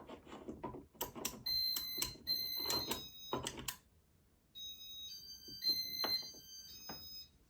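Fan wall control being programmed into Light Minder mode: a series of sharp button clicks with short, high electronic beeps sounding between them, then after a short pause a run of high, steady electronic tones that change pitch several times.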